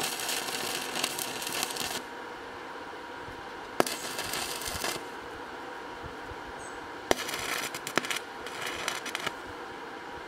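Stick (arc) welding: a coated electrode striking an arc on steel square tubing three times, each start a sharp snap followed by a second or two of crackling and sizzling before the arc is broken.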